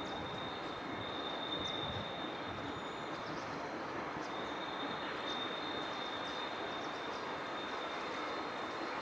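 Steady rail-yard and city background noise with a high, steady whine that breaks off briefly about four seconds in.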